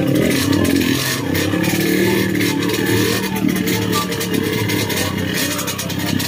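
Dirt bike engine running on the trail, its pitch rising and falling with the throttle.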